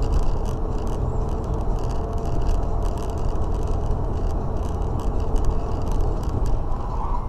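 Car driving at highway speed, heard from inside the cabin through a dashboard camera: a steady low rumble of engine and tyres on the road, with faint irregular clicks.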